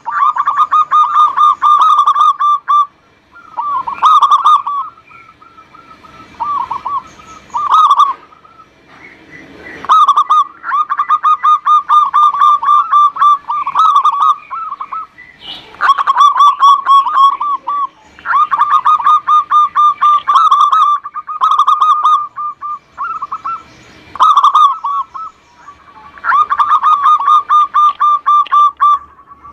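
Zebra dove cooing: runs of rapid staccato coos, some short and some lasting several seconds, repeated about ten times with brief pauses in between.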